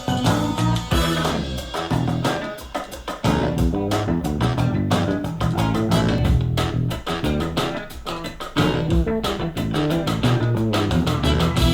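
Music with bass guitar, guitar and drum kit, played back through a loudspeaker for a listening test.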